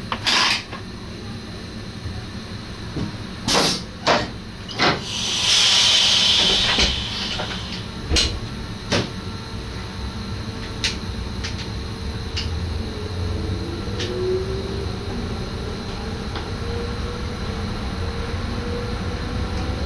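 In the cab of an NS SGM Sprinter electric train, a series of sharp clicks and clunks sounds, with a burst of air hiss lasting about two seconds. From about twelve seconds in, the electric drive's whine slowly rises in pitch over a low rumble as the train starts to move off.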